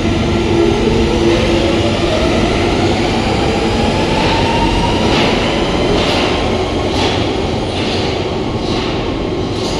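London Underground 1992 Stock Central line train pulling out and accelerating away. Its motor whine rises steadily in pitch over the first few seconds, then regular clacks come about once a second as it runs off into the tunnel.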